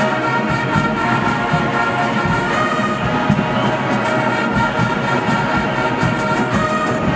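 Instrumental music with steady held chords.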